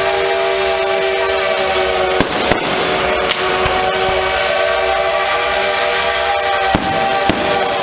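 Fireworks going off in a handful of sharp bangs over a long, steady train whistle that breaks off briefly about two seconds in and then sounds again.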